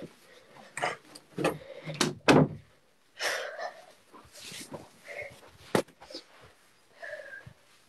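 A series of knocks and bumps, the loudest about two and a half seconds in and a sharp one near six seconds, with short bursts of rustling in between.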